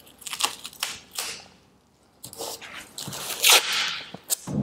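Masking tape peeling off the roll in a series of short crackling pulls as it is laid along an aluminium boat hull, with a longer pull about three and a half seconds in.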